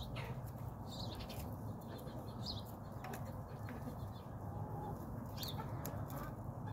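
Backyard chicken flock: a few short, high chirps and soft calls scattered over a steady low rumble.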